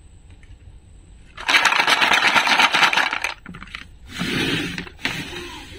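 Plastic toy fruit and vegetable pieces rattling and clattering in a plastic tray as it is jostled: a dense run of rapid clicks for about two seconds, then a shorter clatter and a single sharp click.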